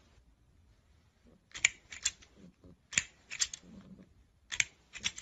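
Plastic toy crocodile snapping its jaws, with sharp clacks in quick pairs about every one and a half seconds.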